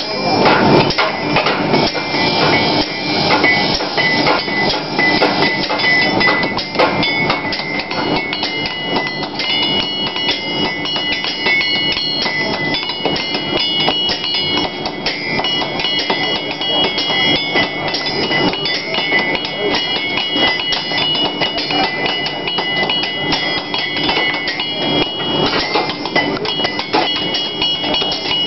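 Blacksmith's hand hammer striking hot iron on a steel anvil in rapid, continuous blows, with the anvil ringing in high, steady tones between strikes.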